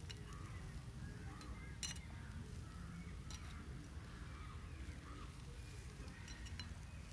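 Faint, scattered clinks of a metal utensil against a wire grill rack as chicken pieces are turned over a charcoal fire, over a low steady rumble.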